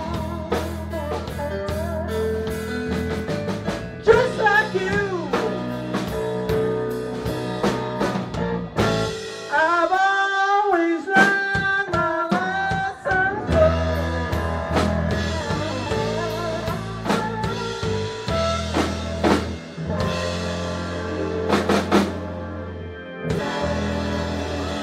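Live blues band playing: drum kit, electric guitar and keyboard over a steady low end. The drums and low end drop out for a few seconds about nine seconds in, leaving a bending lead line, then the full band comes back in.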